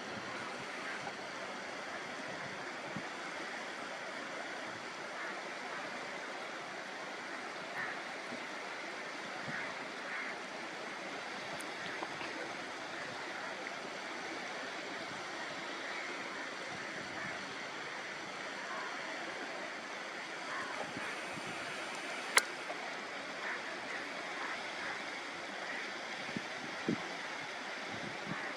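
Steady wash of water, like waves on a shore, with one sharp click about 22 seconds in.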